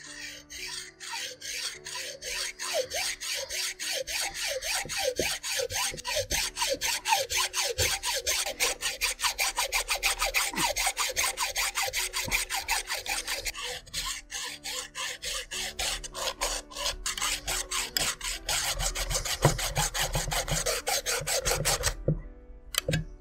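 Hacksaw cutting through a coconut's hard shell in quick, even back-and-forth strokes, which stop shortly before the end.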